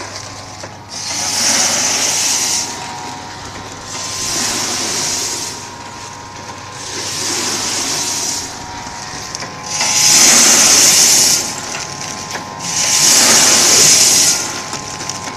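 Vertical form-fill-seal packing machine for 1 kg powdered fertilizer running through its bagging cycle: a hissing rush about every three seconds over a steady machine hum.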